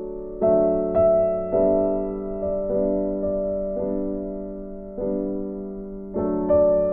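Background piano music: slow, gentle notes, each struck and left to fade.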